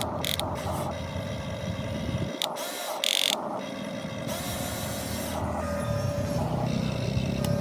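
Radio-controlled model excavator running, a steady mechanical whir with a pulsing hum, broken by a few short hissy bursts near the start and around three seconds in.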